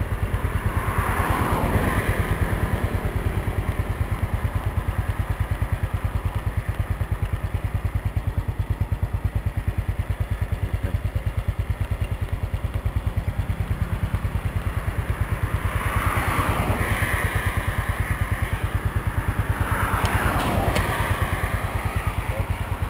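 A small motorcycle engine idles close by with a steady, rapid low beat. Passing traffic swells up about a second in, again around sixteen seconds in, and near the end.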